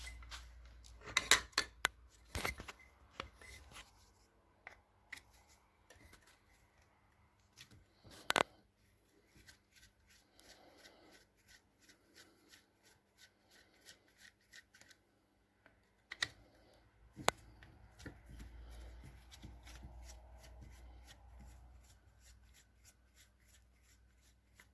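Scattered clicks, ticks and light rubbing of hand tools and small metal parts being worked by hand, with a cluster of sharper knocks near the start, another about a third of the way in, and two more just past the middle.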